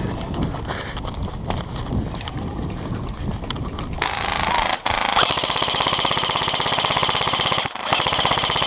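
Airsoft electric gun firing on full auto from about halfway through: a rapid, even clatter in long bursts, broken twice by short pauses. Before it, scattered light clicks and knocks.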